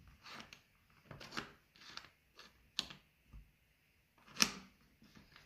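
Wooden tiles of a sliding-block puzzle being pushed around their tray by hand: a series of short scrapes and light clicks as pieces slide and knock against each other, the sharpest click near the end.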